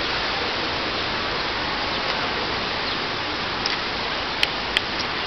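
Steady rush of running water. Two sharp clicks come close together near the end.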